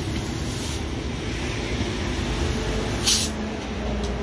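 A short, sharp hiss of compressed air about three seconds in, from the air hose at a motorbike tubeless tyre's valve, over a steady low background rumble.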